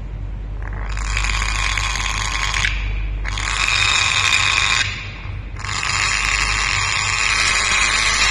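Grey parrot giving three long, harsh, rasping screeches, each one to three seconds long, the first about a second in and the last the longest.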